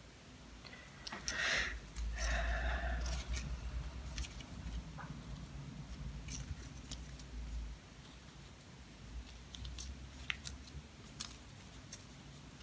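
Paper strips rustling and crinkling as they are bent up and pressed onto a glued spool. The rustling is loudest in the first few seconds, with scattered light clicks of handling later on.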